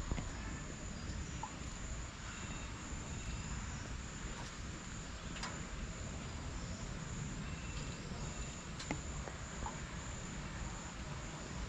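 Insects droning steadily at one high pitch over a low outdoor rumble, with a few faint ticks scattered through.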